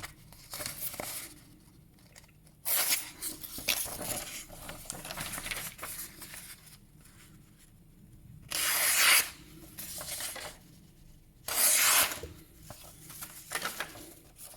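A sheet of paper being sliced with a folding pocket knife in a sharpness test: several short bursts of cutting and tearing, the two loudest a little past the middle and about three-quarters through, with quieter paper rustling in between.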